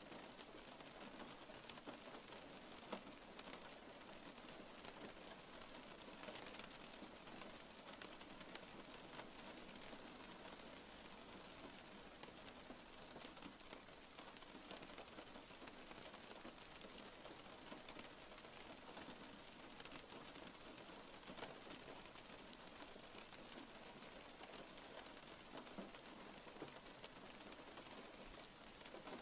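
Steady, faint rain falling: an even hiss of rain with scattered small drop taps.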